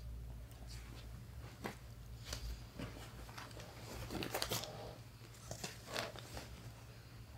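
Soft rustling and crinkling of bedding as a hand works under a pillow: a scatter of brief scratchy sounds, loudest about four seconds in, over a low steady hum.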